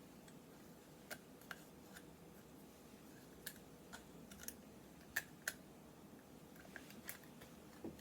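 Faint, scattered clicks and taps of a wristwatch and its strap being handled and taken up to be put on, two sharper clicks a little after halfway.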